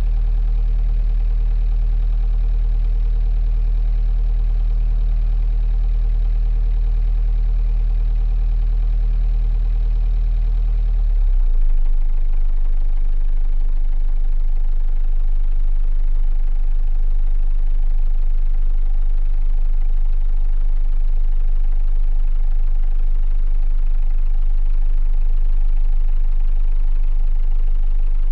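A 45 ft sailboat's inboard diesel engine running, heard from inside the rear cabin. About eleven seconds in its speed changes: the even hum gives way to a rougher, more knocking running note.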